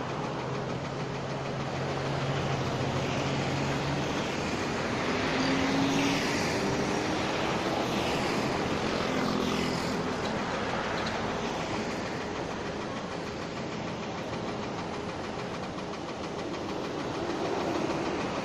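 Boom crane engine running steadily under a constant rushing noise, its hum shifting and rising slightly in pitch about five seconds in.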